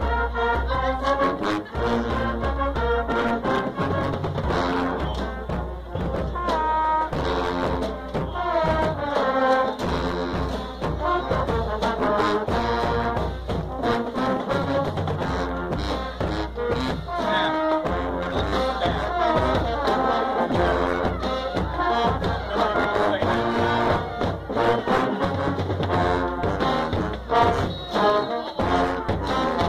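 Marching band brass section playing a loud, rhythmic tune, with trombones close up and a heavy sousaphone bass.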